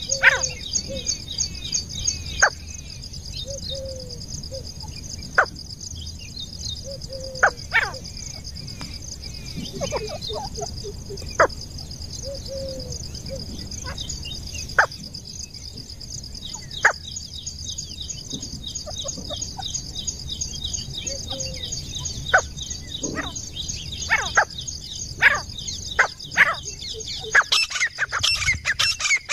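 Grey francolins calling: scattered short, sharp call notes and a few soft low notes over a steady high buzzing background. A louder, denser run of calls begins near the end.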